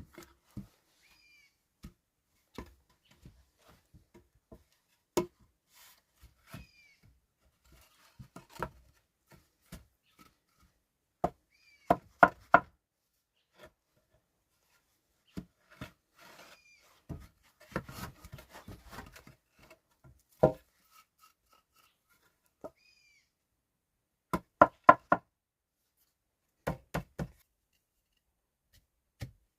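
Irregular sharp wooden knocks and chops, like a blade or tool striking wood, some in quick runs of three or four blows. In the middle there is a stretch of crackling and rustling, as of sticks or branches being handled.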